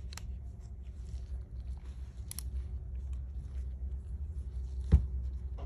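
Small clicks of a hook pick and seals being handled on a hydraulic throwout bearing over a steady low hum, with one sharp knock about five seconds in.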